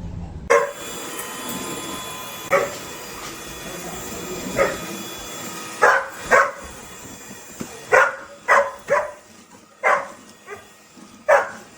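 A dog barking: about a dozen short barks, spaced irregularly and coming closer together in the second half.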